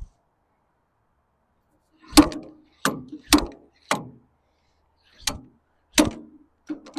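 Slide hammer's sliding weight slammed against its stop six times, sharp metal clanks in an uneven rhythm, pulling a diesel injector out of the cylinder head.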